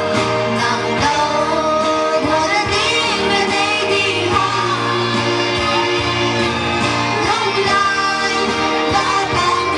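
Two girls singing a song together into handheld microphones over instrumental accompaniment with a steady beat and bass line.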